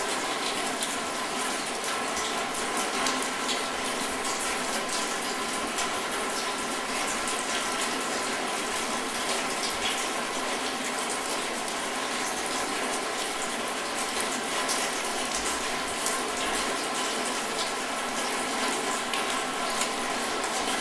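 Steady rain falling: an even hiss of water with fine drop impacts mixed in.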